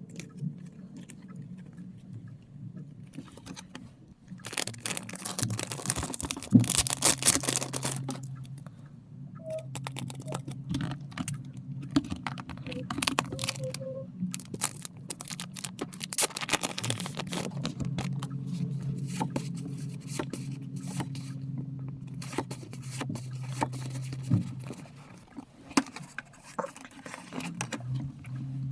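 Photocard packaging being unwrapped by hand: tearing, crinkling and scraping in irregular bursts, loudest from about five to eight seconds in, over a steady low hum.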